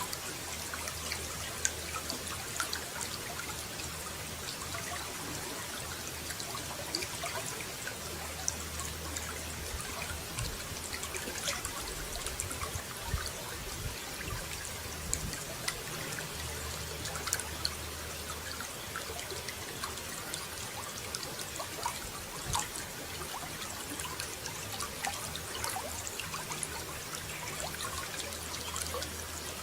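Running water trickling and splashing steadily, with many small drips and splashes over an even flow.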